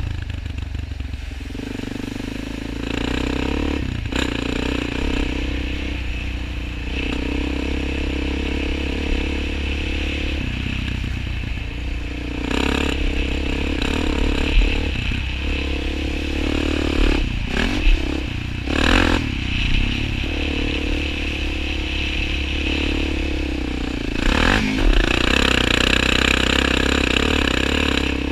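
Suzuki LTZ 400 quad's single-cylinder four-stroke engine running under throttle, its revs rising and falling as it is ridden. A few brief knocks cut through it.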